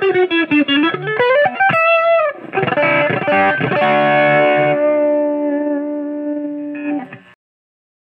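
Selder Stratocaster electric guitar playing a quick run of single picked notes that falls and then climbs in pitch, and a note that slides down. Strummed chords follow and are left ringing, then a short final strum cuts off abruptly near the end.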